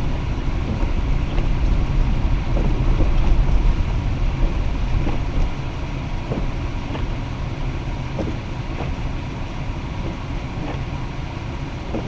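Car driving on a slushy, snow-covered road, heard from inside the cabin: a steady low rumble of tyres and engine, easing a little about halfway through.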